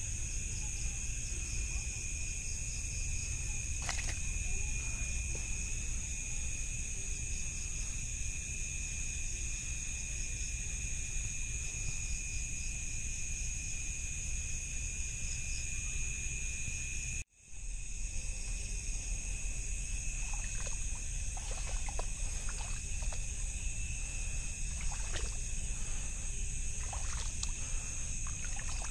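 Steady high-pitched chorus of crickets over a low rumble of handling noise. The sound cuts out for a moment a little past halfway, and short light clicks and taps come through in the last third.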